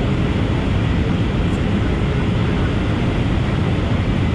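Steady cabin noise of a jet airliner during the descent to land: engine and airflow noise heard from a window seat beside the engine, even and unchanging.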